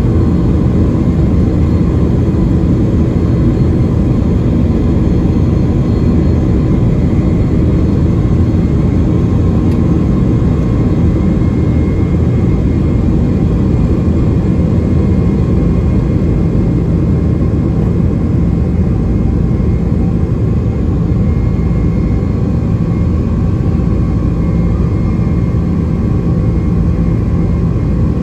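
Boeing 767-300ER's twin turbofan engines at takeoff thrust, heard inside the cabin beside the wing: a loud, steady roar with a faint high whine running through the takeoff roll, liftoff and initial climb.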